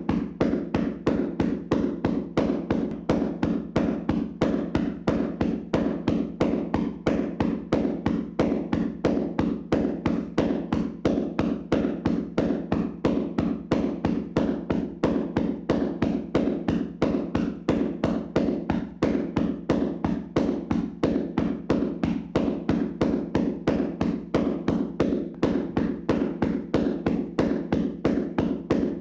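Hands slapping and tapping on a person's body in a vigorous percussion massage: a steady, even run of dull slaps at about three a second.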